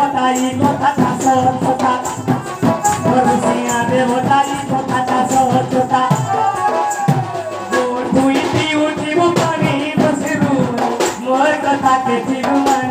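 Sambalpuri folk dance music: a barrel drum (dhol) beaten with a stick and a hand, with jingling percussion and a melody over the beat.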